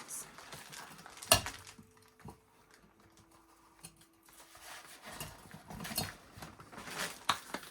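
Objects being handled: a sharp knock about a second in, then scattered lighter clicks and rattles a few seconds later.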